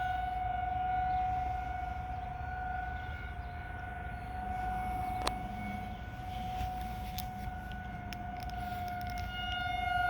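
Federal Signal 2001-DC 12-port outdoor warning sirens sounding a steady tone for a monthly test. The tone fades through the middle and swells again near the end as the rotating siren heads turn away and back.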